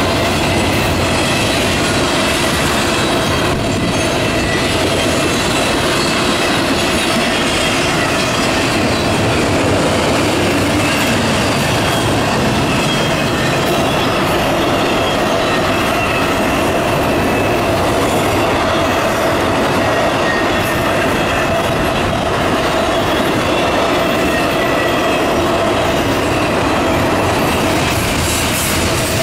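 Loaded double-stack intermodal well cars rolling past close by: a steady, loud noise of steel wheels on the rails, with thin steady high tones from the wheels running through it.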